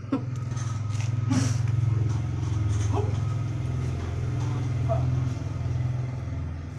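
An engine running steadily with a low hum, with a few brief clicks and short squeaks over it.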